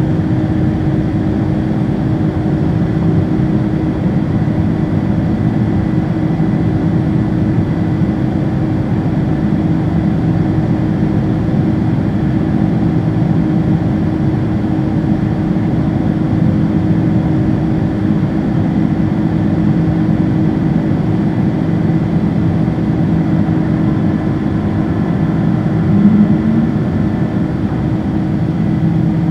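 Steady drone of a Boeing 767-300ER's General Electric CF6-80C2 turbofan engines and rushing airflow heard inside the cabin over the wing during the climb after takeoff, with a constant low hum under the roar. There is a brief louder swell about 26 seconds in.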